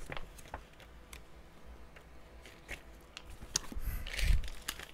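A plastic-wrapped snack packet being picked up and handled: scattered light clicks and rustles, with a soft thump and a crinkle about four seconds in.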